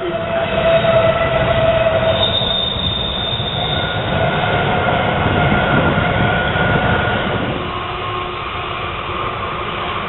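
Container freight train passing, its wheels rumbling on the rails with loud, high-pitched wheel squeal: several held tones that come and go over the rumble.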